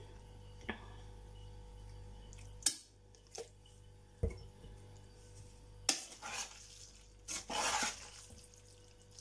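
Metal spoon in an enamel pot of pasta: a few scattered clinks and knocks as it is stirred and set down, then two short louder scraping rustles near the end as the pot is handled.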